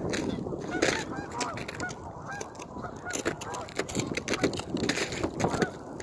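A flock of geese flying over, honking over and over, with crunching footsteps on snow.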